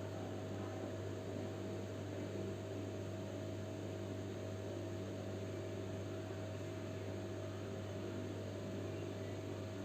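Steady low electrical hum with an even hiss underneath, unchanging throughout, with no distinct knocks or clicks.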